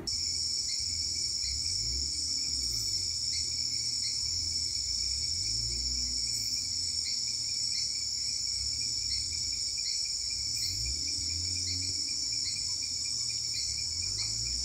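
Dense insect chorus of crickets and similar insects: several steady, high-pitched trills layered together, continuing without a break.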